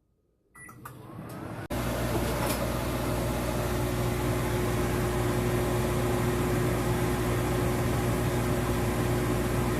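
Microwave oven running: a steady hum with a low buzz that starts abruptly after a few clicks about two seconds in.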